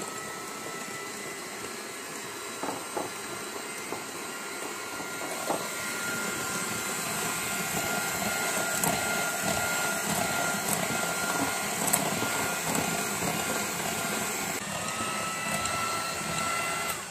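Electric hand mixer running steadily, its twin wire beaters mixing flour into muffin batter, with a steady motor whine and a few light clicks of the beaters against the glass bowl. It cuts off right at the end.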